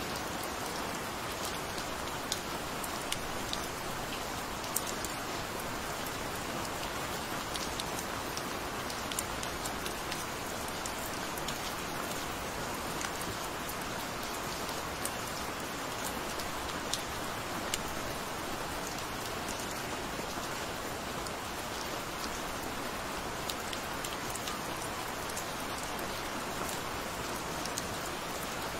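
Gentle, steady rain falling: an even hiss with scattered sharp taps of single drops.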